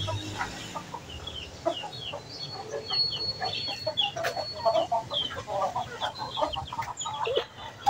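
Chickens clucking as they forage, with many short, high peeps from chicks mixed in.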